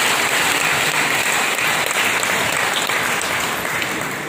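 A large congregation applauding, the clapping dying away near the end.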